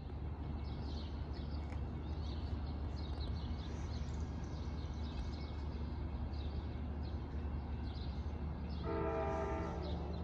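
A steady low rumble from an approaching train, then about 9 s in a train's multi-note air horn sounds once for just over a second. Short high chirps, like birds, run throughout.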